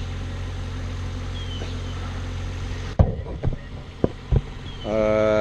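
An engine idling steadily. About three seconds in there is a sharp knock followed by a few lighter clicks.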